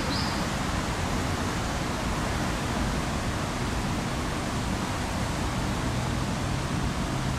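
Steady, even rushing noise with no clear events; a last short high chirp sounds right at the start.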